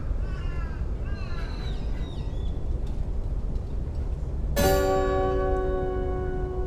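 A 12-string acoustic guitar is struck once about four and a half seconds in, the chord ringing on and slowly dying away. Before it, crows caw in the first second and another bird calls with short falling whistles.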